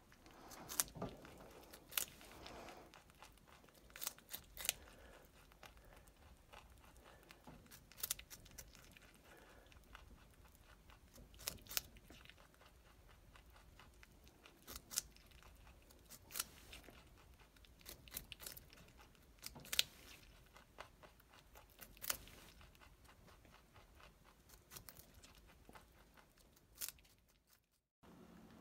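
Holland Lop rabbit biting and chewing a hand-held piece of raw carrot: sharp, crisp crunches every second or two, with quieter chewing between them.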